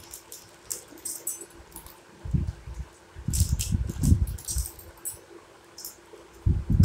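Small steel miniature kitchen utensils being handled: scattered light clinks and rattles in two clusters, with a few dull bumps in between.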